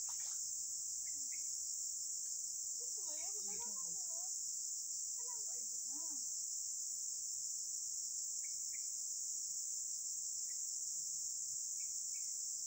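Insect chorus: a steady, high-pitched continuous shrilling. Faint voices come through briefly around three and six seconds in.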